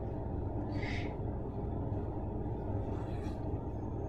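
Steady low background hum, with a couple of faint scrapes of a spatula mixing stiff bread dough in a glass bowl, about a second in and just after three seconds.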